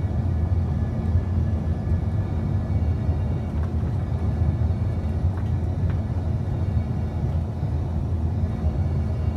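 Aircraft cabin noise heard from inside the cabin: a steady low rumble of engines and airflow, with a faint steady hum above it.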